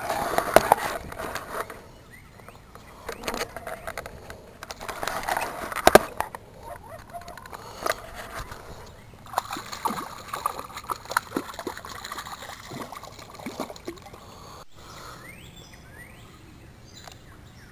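A hooked catfish splashing and sloshing at the water's surface in irregular bursts, with a few sharp knocks mixed in. It goes quieter after about fifteen seconds.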